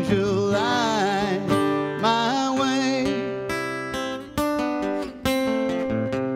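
Acoustic guitar strummed, with a man singing over it. The vocal line ends about three seconds in, leaving strummed chords struck about once a second.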